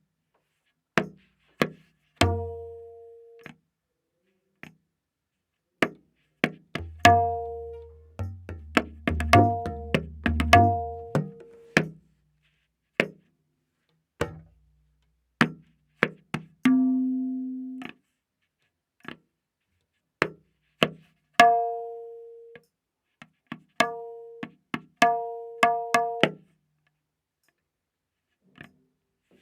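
Tabla playing a slow vilambit ektaal theka, the dayan tuned to A#: sparse, ringing right-hand strokes at one pitch, with deep bayan strokes mixed in and short silent gaps between phrases.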